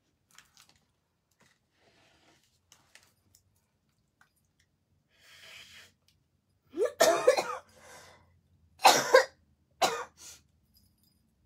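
A woman coughing hard, four coughs in quick succession starting about seven seconds in, the first the longest.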